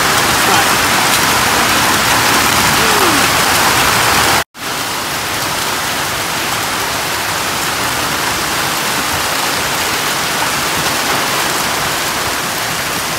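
Hailstorm: hail and heavy rain pelting down onto paved ground and a planted bed, a dense, steady hiss of impacts. It breaks off for an instant about four and a half seconds in, then goes on a little quieter.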